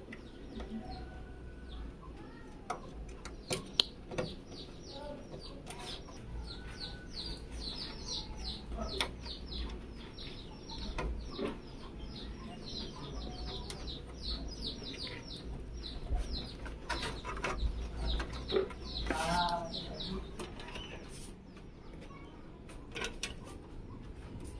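Small birds chirping over and over, a rapid series of short falling chirps, with scattered light clicks and knocks in between.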